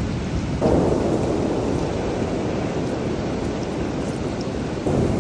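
Steady rushing rain with a rumble of thunder. The thunder breaks in suddenly just under a second in and slowly dies away, and a second, smaller swell comes near the end.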